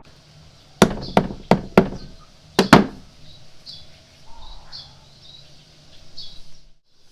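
A series of about six sharp knocks or hard taps in the first three seconds, the last two close together, followed by fainter light clicks.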